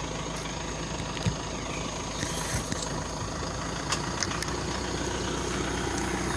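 Pickup truck engine idling steadily, a low even hum, with a few light clicks and rustles on top.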